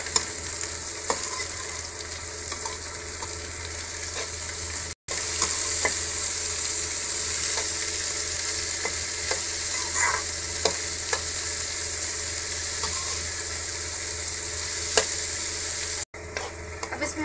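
Chopped onion, carrot and beans sizzling as they sauté in oil in a metal kadai. A metal spatula stirs them, scraping and clicking against the pan. The sound drops out for an instant twice.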